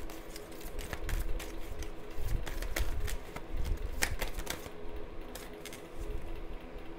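A tarot deck shuffled by hand: a quick, uneven run of card clicks and flicks, over a steady low hum.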